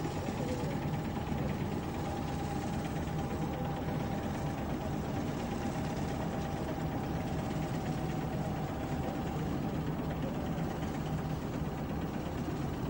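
An engine running steadily, a low drone with a thin steady whine above it and no change in speed, over an even wash of noise.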